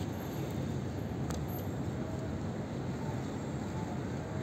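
Steady low outdoor rumble of city background noise, with a faint click just over a second in.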